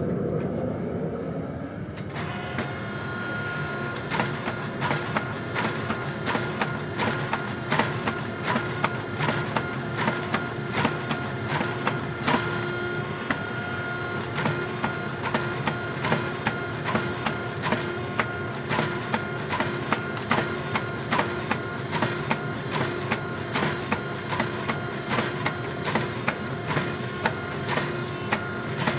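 A forging machine fitted with drawing dies drawing out a hot san mai steel billet. A steady machine hum starts about two seconds in, followed by a long, regular run of sharp knocks as the dies strike the steel.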